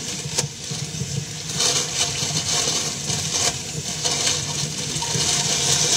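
Clear plastic bag crinkling and rustling in irregular swells as it is handled, with a sharp click about half a second in, over a steady low hum.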